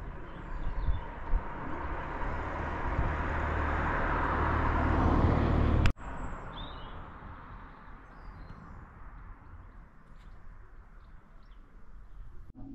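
A passing road vehicle growing steadily louder, tyre and engine noise rising for about six seconds before cutting off suddenly. Then quieter open-air background with a few short bird chirps.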